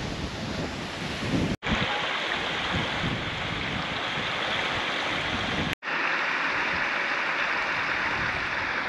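Wind gusting on the microphone over a steady rush of water, broken twice by split-second cuts to silence.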